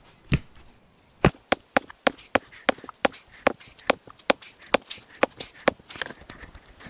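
A quick run of sharp knocks, about three a second, as a log post is repeatedly lifted and thumped down into a freshly dug post hole to bed it and check the depth.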